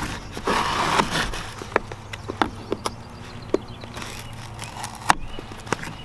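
Folding pocket knife slitting packing tape on a cardboard box: a scratchy cut about half a second in, then scattered sharp ticks and taps as the blade and fingers work along the tape and cardboard.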